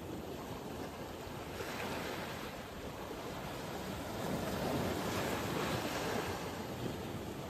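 Steady rushing noise of sea surf mixed with wind buffeting the microphone, swelling slightly a couple of times.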